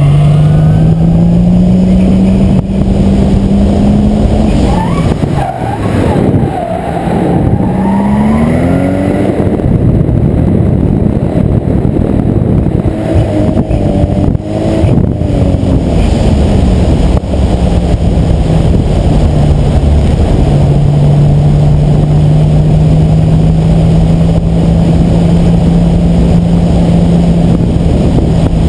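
Toyota Supra's engine under hard track driving. The revs climb, swing quickly up and down twice in the middle of a drift, then hold a steady drone near the end, all over a constant rushing noise.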